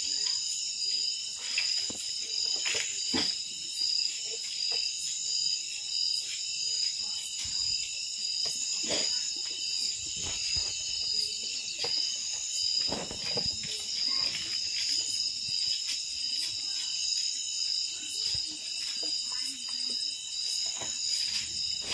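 A chorus of night insects, a steady high trilling, with a few brief soft knocks now and then.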